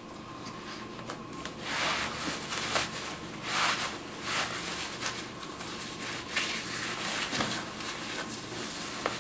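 Prosthetic suspension sleeve being rolled up over the socket onto the thigh, its material rubbing and swishing in a series of short strokes as hands pull and smooth it.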